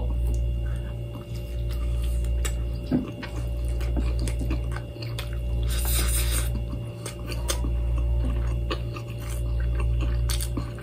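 Close chewing and wet mouth sounds of a person eating with his hands, with small clicks and a brief rustle about six seconds in. A low hum underneath swells and fades about every two seconds.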